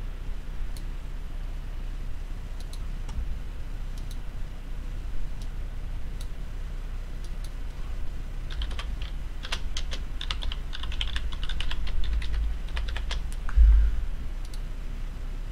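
Typing on a computer keyboard: scattered key clicks, then a quick run of keystrokes about halfway through, with a low thump near the end. A steady low hum runs underneath.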